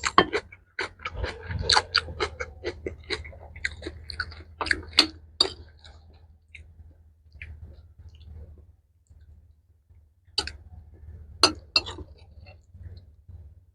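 Close-miked chewing of a mouthful of mixed rice with pickled mustard greens and vegetables: moist, clicky bites packed closely for the first several seconds, a quieter spell, then another short run of chewing about ten seconds in.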